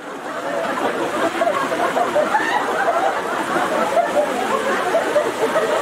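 Audience chatter: many voices talking and chuckling at once, overlapping into a steady babble.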